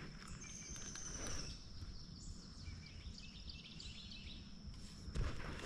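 Quiet outdoor lake ambience: a steady low rumble of wind and mic noise under a thin, steady high-pitched whine, with a few faint bird chirps. A couple of soft knocks from handling come near the end.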